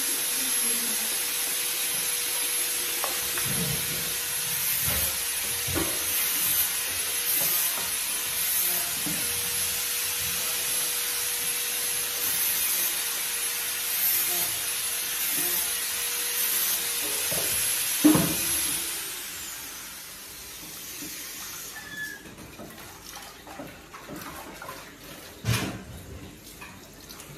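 A kitchen tap running into a stainless steel sink during dishwashing, with occasional clinks and knocks of dishes and pans. The water is shut off about two-thirds of the way through, leaving only quieter dish clatter.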